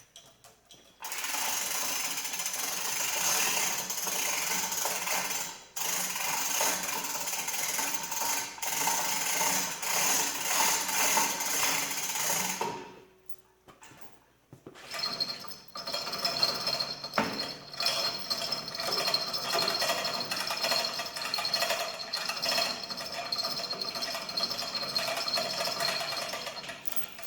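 Electric hoist of an overhead shop crane running under the load of an engine block, in two runs of about twelve seconds each with a short stop between them; a steady high whine is heard through the second run.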